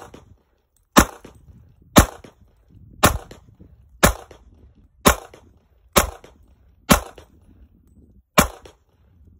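Smith & Wesson 4006 pistol in .40 S&W firing eight shots at a slow, steady pace of about one a second. The last shot comes after a slightly longer pause. Each report has a short echo.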